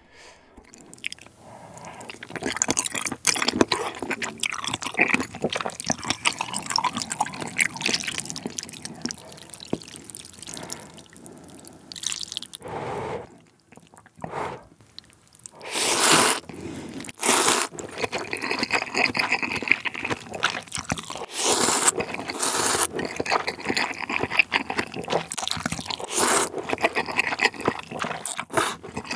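Close-miked mouth sounds of eating jjamppong, spicy seafood noodle soup: wet chewing and smacking, with several loud noodle slurps in the second half.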